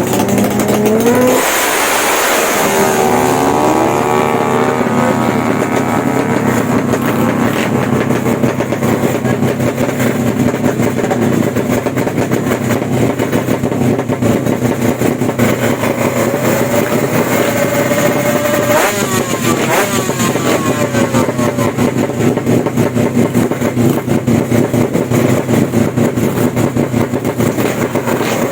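Drag-bike motorcycle engines: one revs up sharply, its pitch climbing about two seconds in, then engines keep running steadily and loudly with a held pitch.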